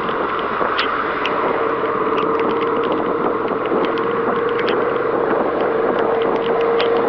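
Suzuki SV650's V-twin engine running at a steady cruise with an unchanging pitch, under a steady hiss of wind and tyres on a wet road. Scattered light ticks sound throughout.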